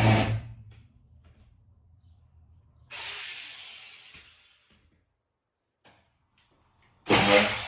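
A battery-powered mini chainsaw's motor cuts off at the start, followed by a few faint clicks and a short hiss that fades out. Near the end the motor starts up again sharply.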